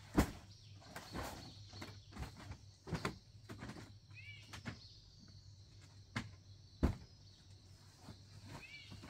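Scattered knocks and thumps, the two sharpest right at the start and about seven seconds in, with a bird giving a short call twice over a steady low hum.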